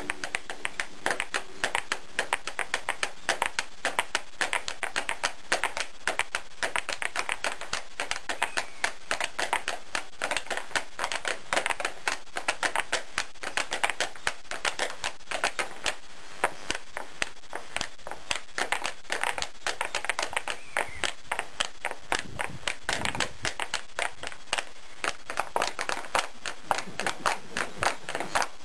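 Step dancers' feet striking a hard stage floor with no music: a quick, uneven run of sharp taps and stamps, several a second.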